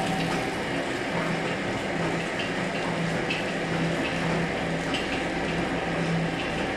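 Tilting wet grinder running: a steady low motor hum with the stone rollers grinding wet batter in the turning stainless steel drum, giving a continuous wet swishing.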